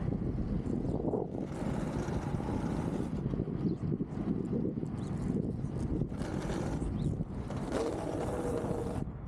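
Inline skates with large 125 mm urethane wheels rolling over city pavement, with a steady low rumble of wind and road noise on the microphone and stretches of louder hiss. The hiss cuts off abruptly near the end.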